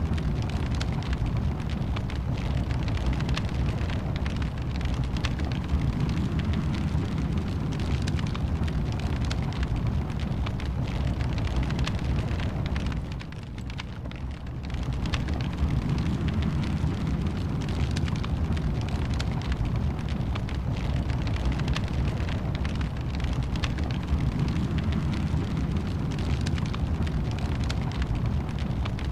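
Fireplace fire burning: a steady low rumble with constant small crackles and pops, dipping briefly in level about halfway through.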